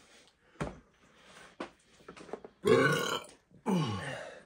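Two loud burps one right after the other, each falling in pitch, the first about two and a half seconds in and the louder of the two. A short soft thump comes about half a second in.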